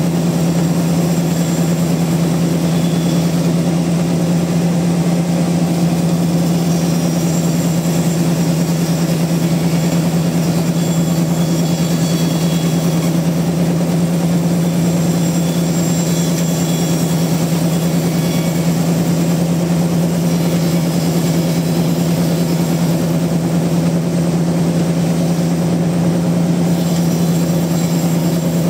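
Large log sawmill machinery running steadily: a loud, constant drone with a strong low hum that does not change.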